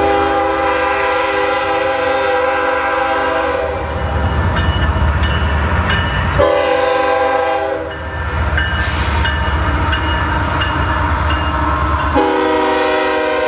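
Diesel freight locomotives sounding a multi-note air horn as they pass: a long blast, a short one about halfway through, and another starting near the end, over the steady low rumble of the engines and rolling train.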